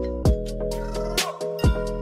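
Background music: held chords over a beat of low thumps.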